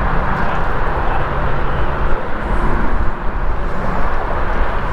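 Strong wind buffeting the microphone: a steady, loud rush with low rumble, in winds of 15 to 25 miles per hour.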